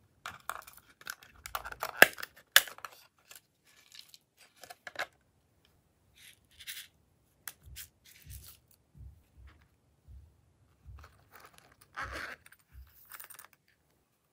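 Hands handling small plastic containers of slime toppings: a quick run of plastic clicks and scrapes with one sharp snap about two seconds in as a crown-shaped box is opened. Later come short rustles as sprinkles are shaken out, with soft taps between them.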